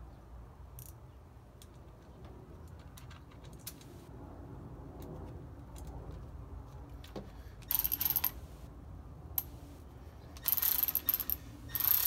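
Small steel bolts, washers and nuts clinking as they are fitted to a two-piece brake rotor. Then a cordless electric ratchet runs in two short bursts in the last third, spinning the nuts down.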